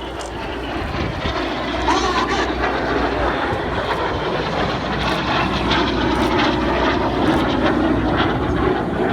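Jet noise from two BAE Hawk T1 jets of the Red Arrows' Synchro pair flying past at high speed. It builds about two seconds in and then holds as a loud, steady roar.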